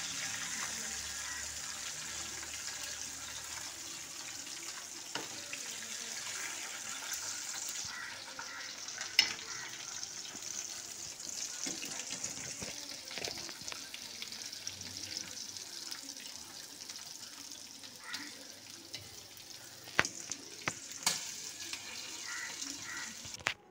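Chicken pieces sizzling in hot coconut oil in a frying pan, a steady hiss that weakens somewhat about eight seconds in. A slotted metal spoon clicks against the pan a few times as the pieces are lifted out.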